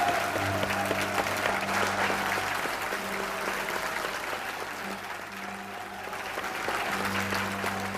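Audience clapping at the end of a live rock-and-roll song, with the band holding low notes underneath. The applause thins a little past the middle, then picks up again.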